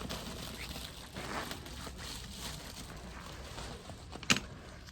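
Rustling and crinkling handling noise, as of items and bags being handled at a shop counter, with one sharp click about four seconds in.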